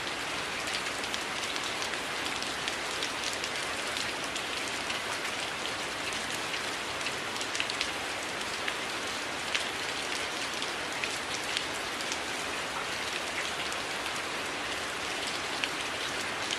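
Steady rain falling on a surface, a constant hiss with many individual drops ticking sharply through it.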